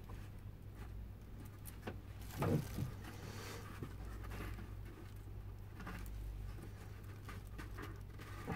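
Plastic clothes pegs being clipped one by one onto the glued kerfed lining at the rim of an oud bowl: faint clicks and handling over a steady low hum, with one short louder sound about two and a half seconds in.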